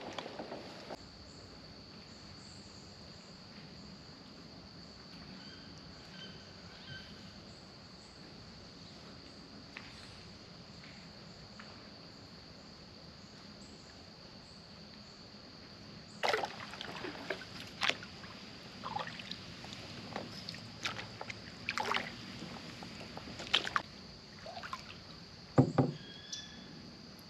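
Knocks and clunks of paddling in a small boat, with sloshing water: sharp irregular hits begin about halfway through, the loudest a hollow thump near the end. A steady high insect drone sits underneath.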